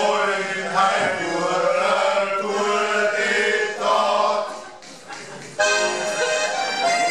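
A group of men singing a folk song together in chorus; after a brief pause about three-quarters of the way through, an accordion takes over with steady held notes.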